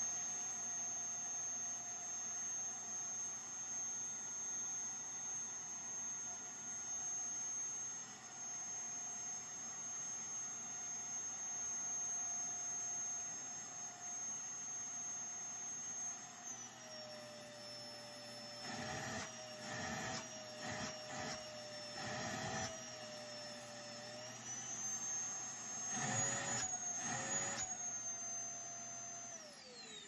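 2013 Twin Bird DD Cyclone canister vacuum running through its hose, with a steady high motor whine. About halfway through the whine steps down in pitch. Several short bursts of louder rushing noise follow, and near the end the motor winds down with a falling whine as it is switched off.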